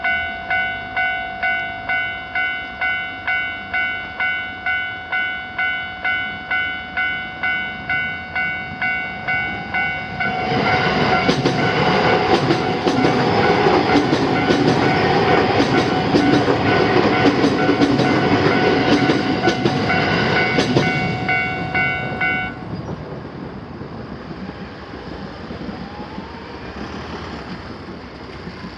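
Japanese railroad crossing alarm ringing its 'kan-kan' strokes, a little over two a second. About ten seconds in a train passes, loud, its wheels clattering over rail joints for some twelve seconds. The alarm stops about 22 seconds in and the train's noise fades away.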